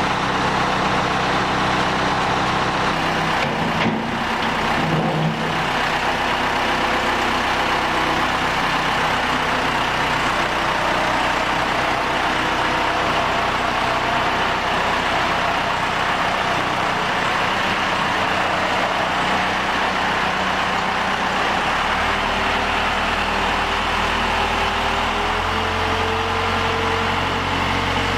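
Case 580C backhoe's engine running steadily. About three-quarters of the way through, the note deepens and a slight rising whine comes in.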